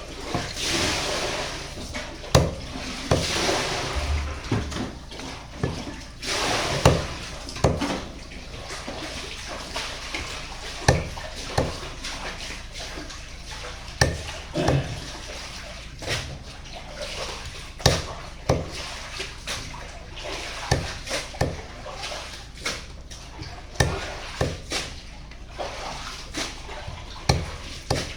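Knife chopping through raw chicken on a cutting board: irregular sharp knocks every second or two. Water splashes or runs during the first seven seconds or so.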